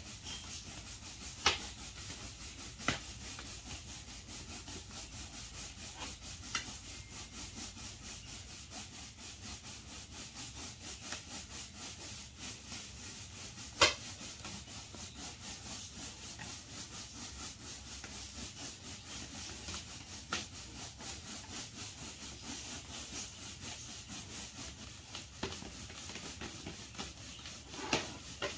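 Latex balloons being rubbed back and forth on hair: a steady, rhythmic rubbing, several strokes a second, that builds up static charge. A few sharper, louder clicks stand out over it, the loudest about midway.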